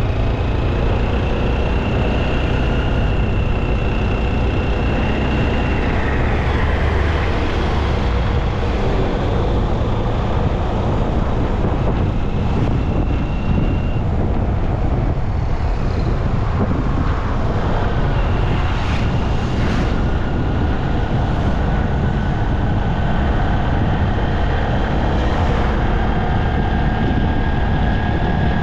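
Steady wind and road noise from a bike moving through street traffic, with a low engine rumble and passing vehicles. A few high steady tones come and go over it.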